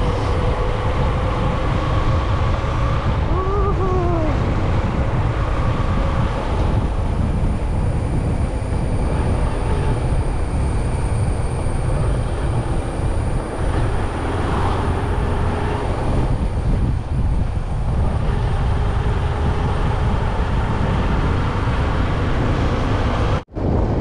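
Steady road and wind rumble of a moving vehicle, with a brief rising-and-falling tone about four seconds in. The sound cuts out for a moment near the end.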